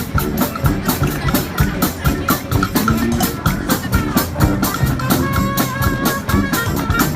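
Street marching bands playing together on parade: horn melody over a quick, steady drumbeat of about five strikes a second, with a low bass line underneath.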